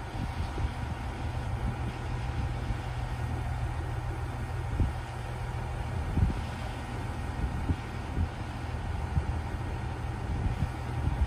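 Kiya 97 diesel rail-transport railcar idling at a standstill: a steady low engine hum with a faint steady higher tone, broken by a few short low thumps.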